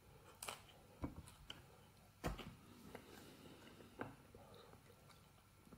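Faint handling noise: a few soft clicks and taps, the loudest about two seconds in, as a cardboard food packaging sleeve is picked up from the table.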